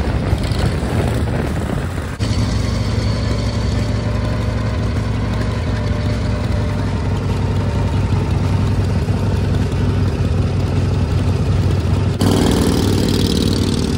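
Harley-Davidson V-twin chopper motorcycles: one riding past, then after a cut several idling steadily at a stop with a low, even engine pulse. Near the end the sound cuts to a different engine sound.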